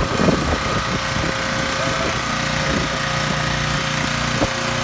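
Pressure washer running steadily while its foam cannon sprays soap foam, a constant drone with the hiss of the spray over it. A single sharp click about four and a half seconds in.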